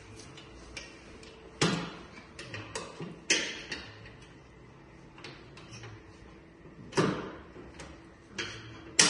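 Scattered knocks and clacks from the mower deck of a Chikusui Fruity Masao ride-on mower as it is handled and settled back into place after a blade change. Louder knocks come about one and a half, three and seven seconds in and again at the end.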